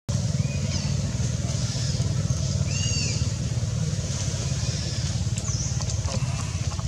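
Steady low rumble throughout, with a short high arched call about three seconds in and a quick high chirp near the end.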